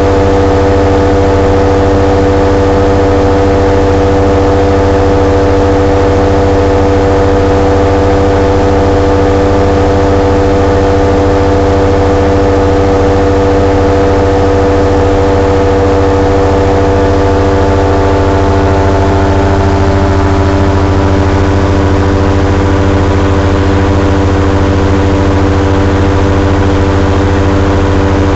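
Chinook ultralight's HKS 700E two-cylinder four-stroke engine running loud and steady at constant cruise power in flight, heard from inside the cockpit, with no change in pitch.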